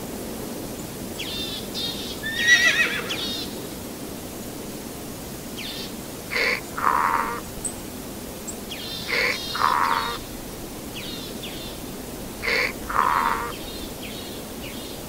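A horse whinnies a couple of times near the start. From about six seconds in, a wild ass brays three times at even spacing, each bray a short high note followed by a longer, lower one: the inhale-exhale hee-haw.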